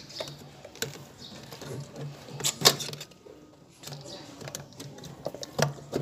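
A few sharp clicks and knocks from hands handling parts inside a refrigerator's freezer compartment, the loudest a little before the middle.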